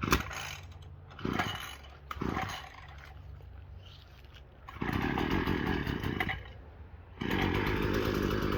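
Parkside PBK 4 B3 multi-tool's two-stroke petrol engine being pull-started. Two short pulls on the starter cord come first. The engine catches about five seconds in, runs for a second and a half and dies, then starts again and keeps running steadily.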